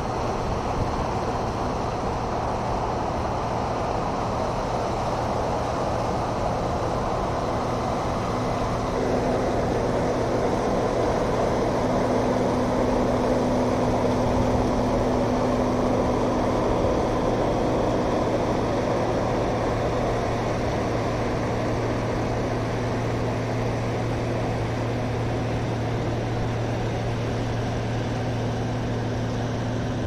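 Combine harvester working a wheat field: a steady low engine drone with a second hum that joins about a quarter of the way in, a little louder in the middle of the stretch.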